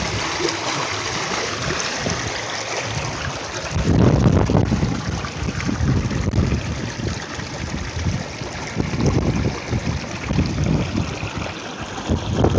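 Shallow burn running and trickling over stones, with wind gusting on the microphone now and then, loudest about four seconds in.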